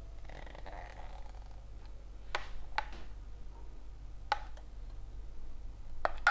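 Metal spoon scraping and tapping against a clear plastic food-processor bowl as thick dressing is scooped out into a saucepan: a soft scrape early, then about four separate sharp clicks.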